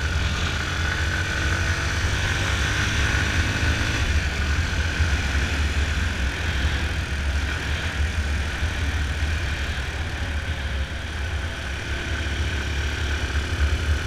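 Yamaha Fazer 250's single-cylinder engine running steadily at cruising speed while riding, under a steady rush of wind on the helmet-mounted microphone.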